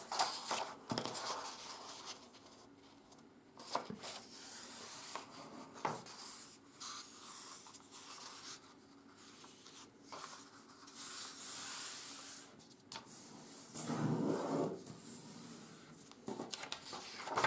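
A sheet of 80 g/m² office paper being folded in half and pressed flat by hand: soft rustling and rubbing as palms slide over the paper and the crease is smoothed down, with a few short clicks and a louder rustle near the end.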